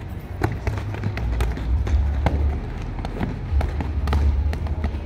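Boxing gloves landing punches in quick, irregular slaps and thuds, with scuffing footwork on dirt, as two fighters spar. A low rumble on the microphone comes and goes and carries the loudest moments.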